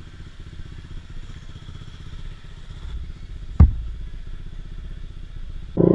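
Honda Click 150i scooter's single-cylinder engine running steadily, with even low pulses. A single sharp thump comes about three and a half seconds in.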